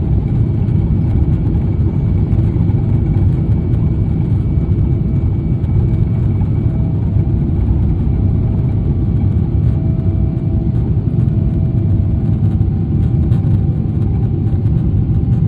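Boeing 777 cabin noise during takeoff: a loud, steady low rumble of the jet engines and airflow heard from inside the cabin, with faint steady whines over it.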